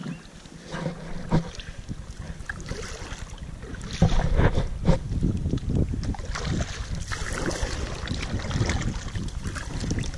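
Kayak paddle strokes splashing and dripping in calm water alongside the hull. Wind buffets the microphone with a low rumble, louder from about four seconds in.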